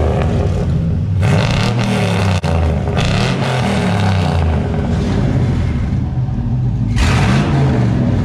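Turbocharged GMC 2500 HD pickup engine revved several times in surges through Total Flow mufflers. The electric exhaust cutouts are closed at first and open by the end, and the last surge, about seven seconds in, is fuller and louder.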